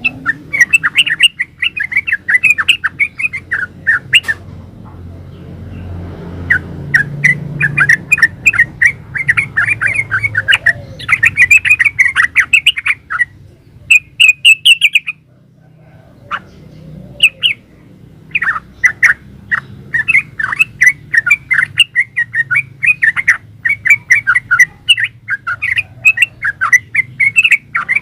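Sooty-headed bulbul (trucukan) singing long runs of rapid, chattering notes, breaking off briefly twice.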